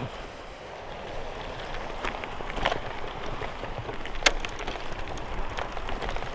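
Drop-bar mountain bike riding over sandy dirt: a steady hiss of tyres rolling on loose ground, with scattered clicks and rattles from the bike and one sharp click about four seconds in.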